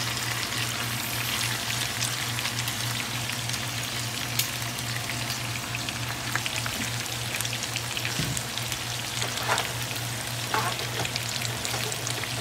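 Bacon frying in hot grease in a pan: a steady sizzle with many small crackles and pops as drained chopped cabbage and onion are tipped in on top. A steady low hum runs underneath.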